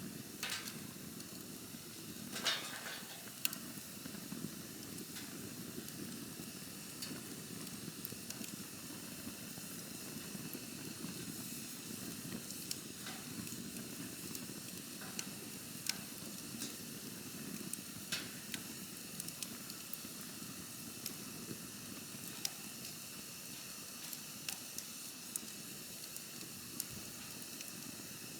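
Wood campfire burning: a steady low rush of flame with scattered sharp crackles and pops throughout, two louder pops about two and a half and three and a half seconds in.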